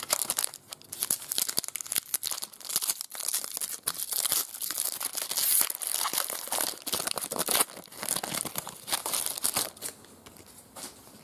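Foil wrapper of a Spider-Man FilmCardz trading card pack being torn open and crinkled by hand. There is a dense crackling for about the first eight seconds, then lighter rustling that fades near the end.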